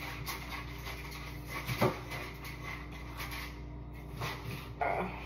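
Handling noises during food preparation: rubbing and shuffling with two short knocks, one about two seconds in and one near the end, over a steady low hum.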